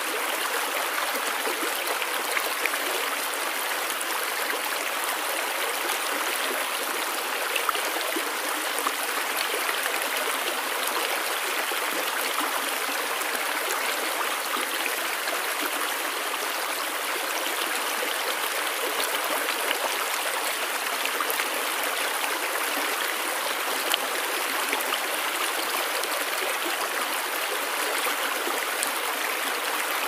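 River water flowing over stones: a steady rush with faint trickles and a few small splashes, and no deep rumble.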